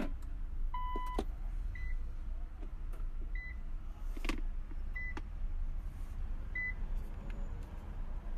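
Nissan GT-R's dashboard warning chime as the ignition is switched to ON with the engine off: one longer beep about a second in, then short beeps repeating about every second and a half. A few sharp clicks from the start/stop button and handling sound over a steady low hum.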